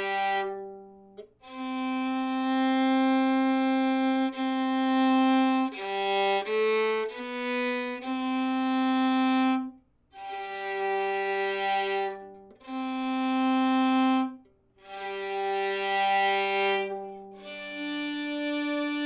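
Solo fiddle playing slow, long bowed notes of two to four seconds each, changing pitch from note to note with short breaks, and a few quick shorter notes about six to eight seconds in. It is a slow intonation exercise, the player using anchored finger placement to find each neighbouring note in tune.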